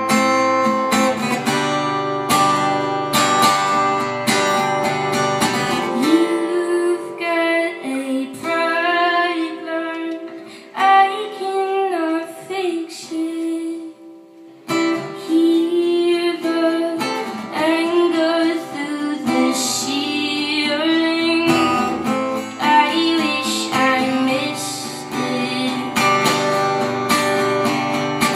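Live song: a strummed acoustic guitar with a female voice singing over it, briefly dropping away about halfway through.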